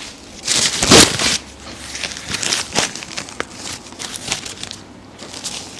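Crinkling and rustling as a patient shifts on a chiropractic treatment table. There is a loud burst about a second in, then scattered smaller rustles and clicks.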